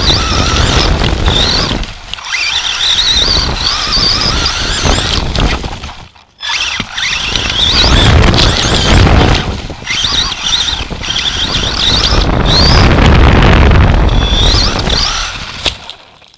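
Onboard sound of an Associated SC10 RC short-course truck running over grass and gravel: a high whine from its motor and gears that rises and falls with the throttle, over heavy rumble and buffeting on the chassis-mounted camera. The sound cuts out sharply for a moment about six seconds in, and again near the end.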